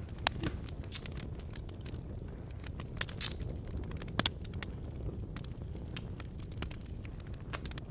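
Fire crackling: a steady low rumble with irregular sharp pops and snaps.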